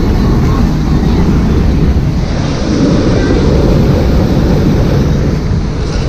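Loud, steady rushing of churning water around a river-rapids raft, with a low rumble on the microphone and a brighter hiss from about two seconds in until near the end.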